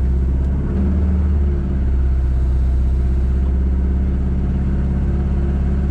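Rally car engine idling, heard from inside the cabin: a steady low drone with a brief slight rise about a second in.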